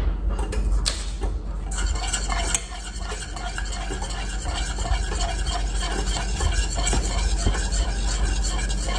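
Wire whisk stirring thickened egg-custard eggnog base in a stainless steel saucepan, the wires rapidly ticking and scraping against the pan. The whisking picks up about two seconds in, as the vanilla is stirred into the custard off the heat.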